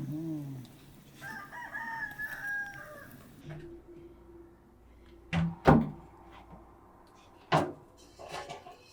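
A rooster crows once, starting about a second in. Later come three sharp knocks, the loudest a little past the middle.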